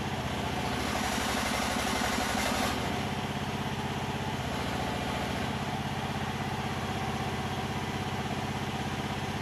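Diggit EM15 mini excavator's engine running steadily while the boom and bucket are raised and lowered. It grows louder and brighter for a couple of seconds near the start, under load as the boom lifts.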